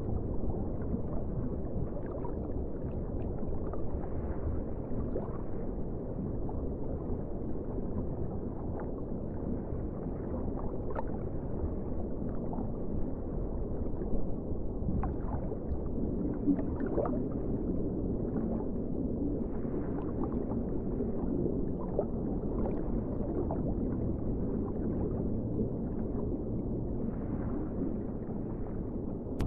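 Underwater ocean ambience: a steady low rumble of moving water with scattered small bubbling ticks, and a faint rising tone about halfway through.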